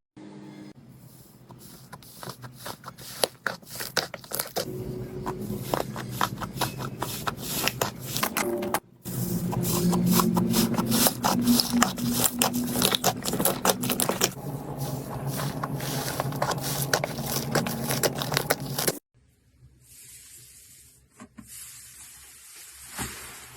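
Slime being squeezed, poked and stretched, giving dense irregular crackling pops and sticky clicks. It comes in three separate clips with abrupt cuts, about 9 s and 19 s in, and the last clip is quieter.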